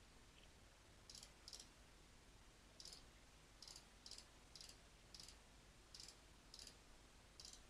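Faint computer mouse clicks, about a dozen of them spaced roughly half a second apart, starting about a second in, as numbers are clicked into an on-screen calculator one button at a time.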